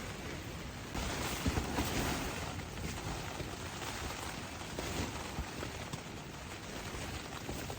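Strong gusting wind rushing against the campsite and tent, a steady noisy rush with a stronger gust about a second in and a few small clicks and rattles.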